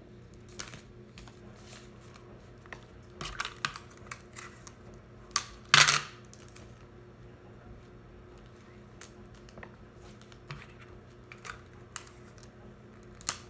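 Origami paper and clear tape being handled while paper crab legs are taped on: scattered soft clicks and crinkles, with a louder rustle about six seconds in.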